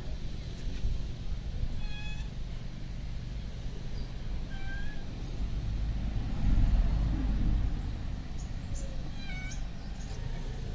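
Short, high-pitched animal calls, repeated every two to three seconds, over a steady low rumble that swells about six seconds in.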